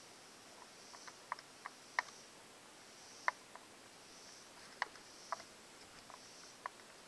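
Scattered light clicks and ticks, a dozen or so at irregular intervals: hands handling the compression tester's fitting and small metal parts at the lower spark plug hole of a two-cylinder four-stroke outboard.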